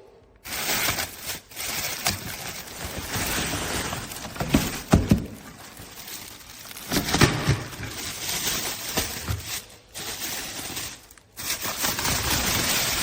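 Stainless steel percolator coffee urn heating up and perking: irregular bubbling, crackling and spitting bursts, with a few sharp spikes and brief breaks.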